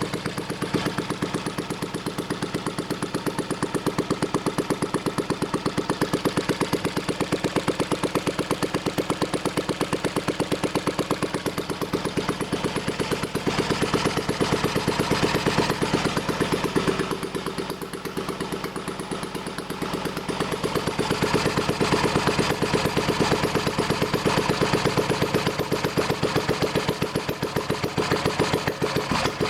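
UZMD L3/2 stationary engine running after an overhaul, with a steady, even beat of firing strokes. It slows and quietens for a few seconds past the middle, then picks up again.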